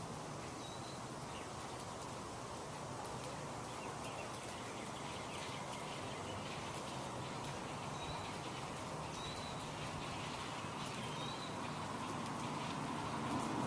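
Outdoor nature ambience: a steady background hiss with a few faint, short, high bird chirps and scattered light clicks.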